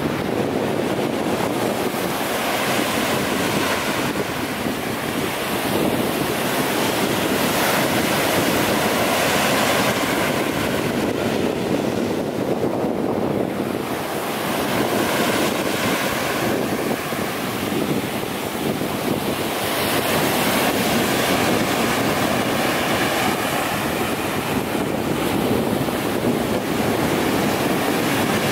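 Ocean surf breaking and washing up the beach, with wind buffeting the microphone. The noise swells and eases every few seconds as the waves come in.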